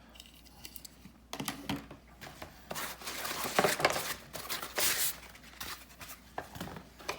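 Packaging being handled and torn open: rustling, crinkling and tearing in uneven bursts for a few seconds, followed by a few small clicks near the end.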